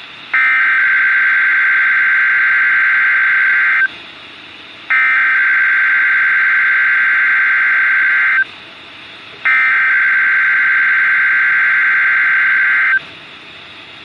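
Emergency Alert System SAME header for a Required Weekly Test, played through a Midland NOAA weather radio's speaker: three identical bursts of buzzing digital data tones, each about three and a half seconds long, about a second apart.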